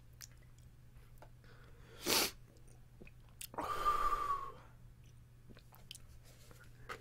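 A man's mouth and breath sounds as he suffers the burn of Carolina Reaper pepper: a short sharp mouth noise about two seconds in, then a long breath blown out through rounded lips, with a faint whistle in it, just past the middle. A faint low electrical hum runs underneath.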